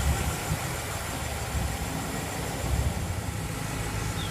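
A car engine idling steadily, a low, even hum.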